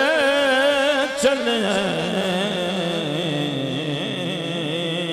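A man's solo voice singing a Punjabi naat. It opens with an ornamented phrase that wavers up and down in pitch, then settles into a long held note that slowly falls.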